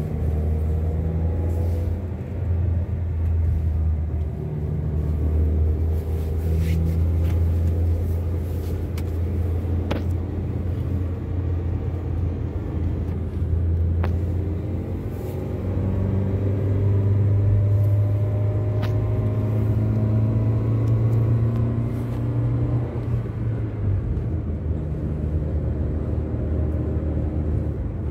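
Car engine and road noise heard from inside the cabin while driving: a steady low drone whose engine pitch slowly rises and falls with speed, with a few faint clicks.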